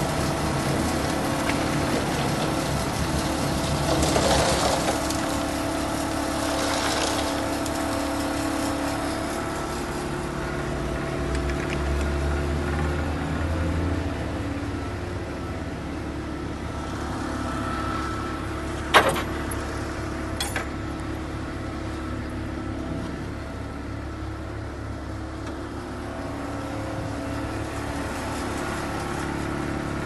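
Renault Kerax 370 DCi concrete mixer truck's diesel engine running steadily at idle. There is a sharp knock about nineteen seconds in and a smaller one a second and a half later.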